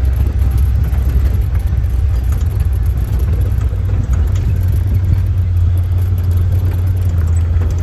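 Side-by-side UTV's engine running steadily under way, heard from on board as a constant low drone.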